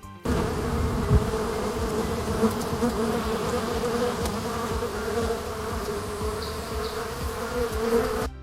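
AI-generated lakeside ambience of steady insect buzzing, like mosquitoes and flies, that starts abruptly and cuts off near the end. A low thump comes about a second in.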